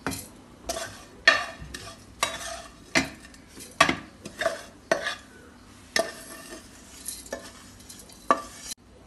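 A spoon scraping the dry-roasted coconut and spice mixture around and out of a pan, in a dozen or so short, irregular strokes that stop abruptly near the end.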